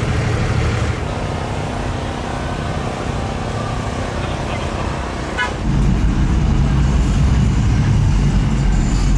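Outdoor vehicle noise, then a short horn toot about five seconds in. Right after it a louder, steady low engine rumble starts, from cars cruising past on the street.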